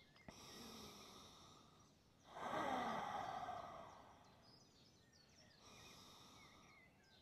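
A person breathing slowly and deeply in a resting stretch: three long, soft breaths, the one about two seconds in the loudest.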